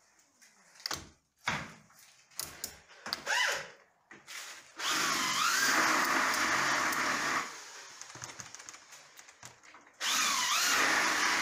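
Clicks and knocks of uPVC window hardware as a sash handle is worked. Then a power drill runs twice for a few seconds each, about five seconds in and again near the end, its whine wavering up and down in pitch.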